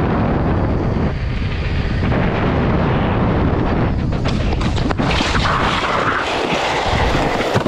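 Heavy wind rush on a helmet microphone while riding an electric unicycle at speed. About four seconds in come several knocks, then a hissing scrape as the rider falls and slides along the asphalt in protective gear.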